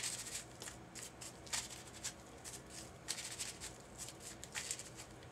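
Soft, irregular crinkling and rustling of a crumpled paper flower made of thin book paper as a small ink pad is dabbed and pressed into its petals.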